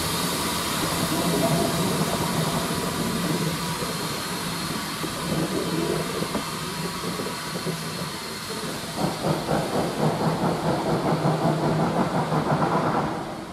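Small saddle-tank steam locomotive (1340 Trojan) pulling a short train away, with a steady hiss of steam. In the last few seconds its exhaust comes in quick, even beats, about three a second, before the sound drops away suddenly.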